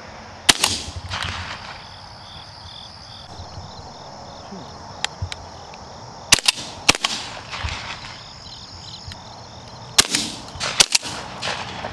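Shotguns firing at doves overhead: about six blasts, one about half a second in, a pair around six and a half seconds, and a quick volley of two or three near the end. Crickets chirp steadily between the shots.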